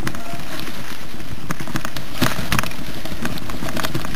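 Mountain bike ridden over a rough woodland trail, heard on the bike-borne camera's microphone: a steady rushing noise with scattered knocks and rattles from bumps, a cluster of them about two seconds in.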